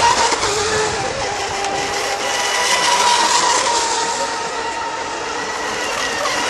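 Mono1-class radio-controlled electric racing boats running flat out, a steady high motor whine over a hiss.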